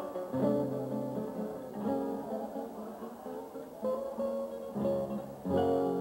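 Acoustic guitar playing: plucked notes and strummed chords, with a new chord struck every second or two.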